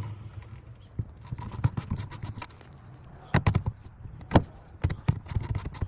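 Scattered clicks and knocks of hand tools and metal fasteners being handled at the fuel pump access cover, with a few sharper taps about three and a half and four and a half seconds in.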